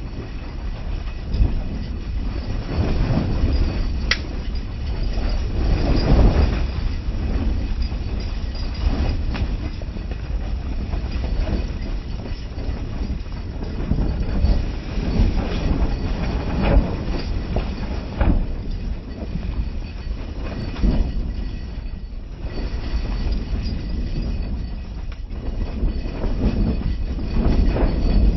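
A train running on its rails: a steady rumble that swells and eases, with a faint high squeal above it and a sharp click about four seconds in.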